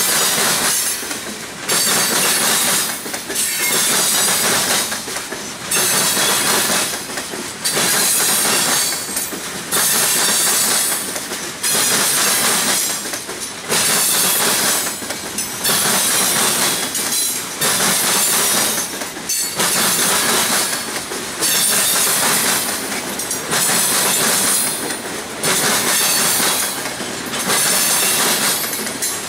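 Steel wheels of CSX hopper cars banging over a railroad diamond crossing: a rhythmic clatter, loud groups of bangs about every two seconds with quieter rolling noise between.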